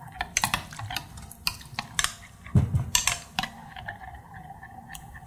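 Metal spoon stirring a sour cream, cornstarch and milk mixture in a glass measuring cup, clinking and scraping against the glass in irregular clicks, busiest in the first few seconds.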